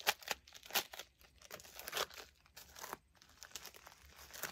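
Small seed packet crinkling and tearing as it is opened by hand, in irregular crackles and rustles.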